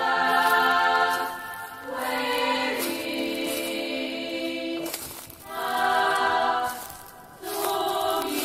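Background music: a choir singing slow, held chords in phrases a couple of seconds long, with short breaks between them.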